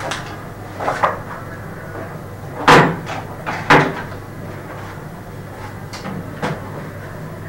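Sharp knocks and thumps of hands striking a desk and a laptop, about five in all, the two loudest near the middle about a second apart. A steady low hum runs under them.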